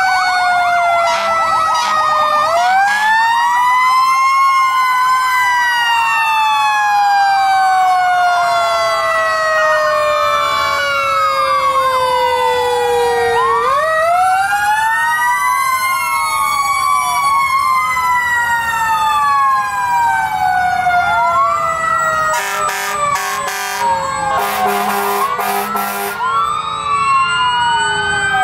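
Fire truck sirens wailing together as several trucks pass in a slow procession, their pitches overlapping. One siren rises quickly and falls slowly over about ten seconds, twice, and a few seconds of loud rapid horn-like blasts cut in near the end.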